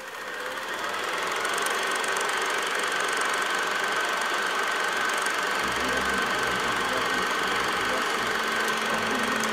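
Film projector running: a steady mechanical whirr and rattle that fades in over the first second and then holds, with a thin steady whine through it.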